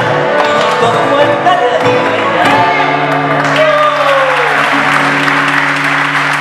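Nylon-string acoustic guitars and male voices singing the end of a folk song. The last sung note is held long and falls away over a ringing final guitar chord, and audience applause and cheering build up about four seconds in.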